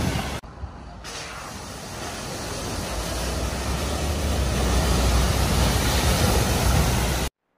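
Pickup truck ploughing through deep, fast-flowing floodwater at a ford, its bow wave and spray making a continuous rushing splash over a low rumble. It grows louder as the truck comes through and cuts off suddenly near the end.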